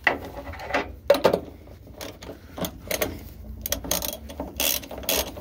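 Hand ratchet clicking in short, uneven strokes as a socket tightens the nut on a transmission mount.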